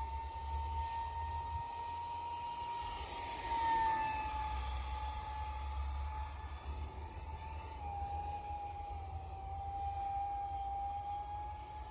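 A 50 mm electric ducted fan on a small RC jet, whining at a steady high pitch. It swells and drops slightly in pitch about four seconds in, dips again around eight seconds, then climbs back. Wind buffets the microphone.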